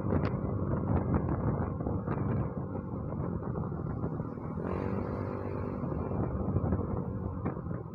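Motorcycle riding at road speed: a steady engine hum mixed with wind and road noise. An engine note rises briefly about five seconds in.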